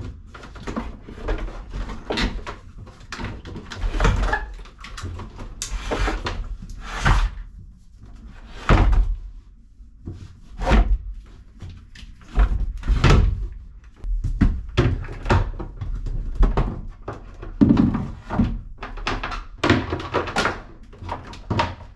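Irregular knocks, clunks and short scrapes of hands handling parts and fittings in a boat's battery compartment.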